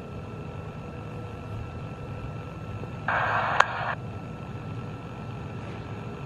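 A steady low hum with a few faint steady tones, broken about three seconds in by a one-second burst of hiss with a sharp click in the middle.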